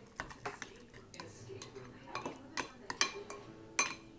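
A spoon stirring a yogurt-and-spice marinade in a bowl, clinking and tapping against the bowl in irregular strokes, a few louder knocks in the second half.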